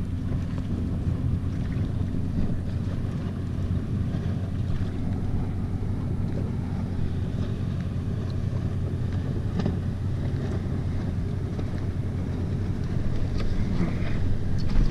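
Steady low hum of a boat engine running, under wind noise on the microphone, with a few light clicks near the end.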